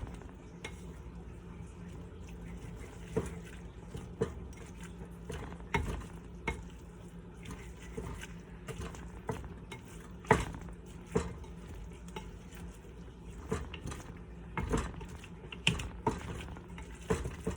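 Wooden spoon stirring macaroni, milk and cheese powder in a glass bowl, with irregular knocks and scrapes of the spoon against the bowl.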